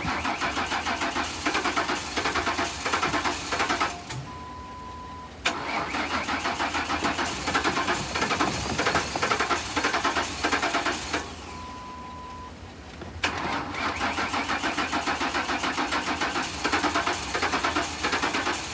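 2008 Ford Crown Victoria Police Interceptor's 4.6-litre V8 being cranked by the starter in three long attempts, a fast even chug that never settles into running: the engine turns over but won't start. A short steady beep sounds in each pause between attempts.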